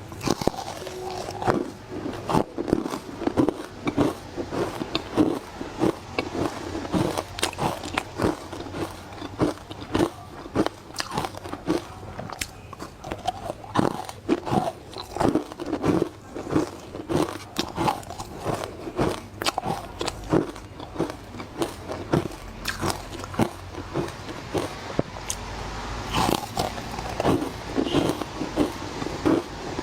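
Frozen matcha ice being bitten and chewed, a fast, irregular run of sharp crunches, several a second.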